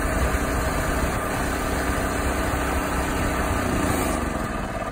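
Kohler engine on an engine-driven air compressor running steadily, its pitch falling near the end as it begins to slow down.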